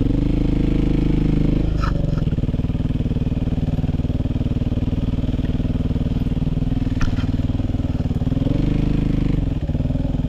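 Suzuki RM-Z450 single-cylinder four-stroke dirt bike engine running at low revs on a slow descent, heard from on board. The engine picks up briefly twice with the throttle, near the start and near the end, and two sharp knocks come about two and seven seconds in.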